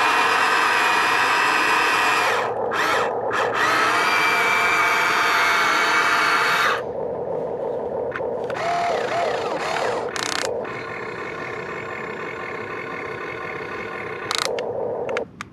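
Huina 1592 1:14-scale RC excavator's electric motors and gearboxes whining as it turns and moves its boom and arm. The whine stops and starts briefly a few seconds in, and drops to a quieter level about seven seconds in, with short rising and falling pitches as individual functions start and stop.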